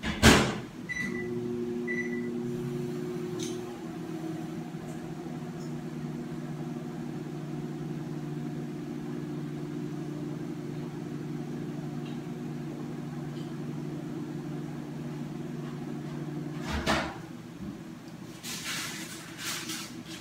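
Microwave oven being started and run: a sharp knock, two short keypad beeps, then a steady hum for about fifteen seconds that stops with a click, followed by a few handling noises.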